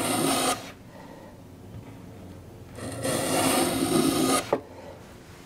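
Metal hand plane cutting shavings from the rabbet of a hardwood board. One stroke ends about half a second in, and a second stroke of about a second and a half starts near three seconds, ending with a short click. Each pass takes a thin shaving to taper the rabbet's depth.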